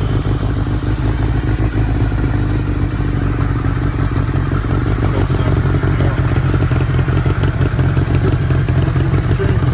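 1976 Kawasaki KZ900's air-cooled inline-four engine running steadily at a fast idle after being kick-started.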